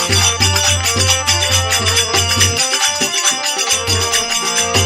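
Instrumental interlude of a Rajasthani folk bhajan: steady rhythmic percussion with a pulsing bass line of about four beats a second, no singing. The bass drops out for about a second midway.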